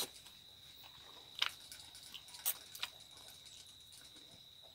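Quiet chewing of a mouthful of spaghetti, with a few short sharp clicks from the mouth or fork about a second and a half, two and a half and three seconds in, over a steady high-pitched insect whine.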